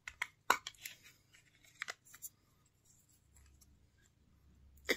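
A handful of small, sharp plastic clicks from a Zoom Q2N-4K camera's battery door being opened and handled, the loudest about half a second in, with the last ones a little over two seconds in.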